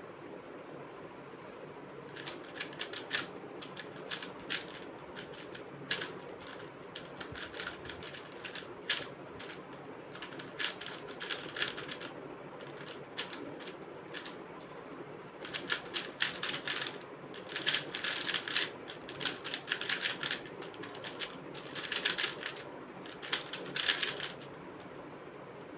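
Magnetic plastic speedcube, a MoYu WeiLong GTS3M, being turned in fast runs of clicking layer turns, with short pauses between sequences as the solver executes from memory.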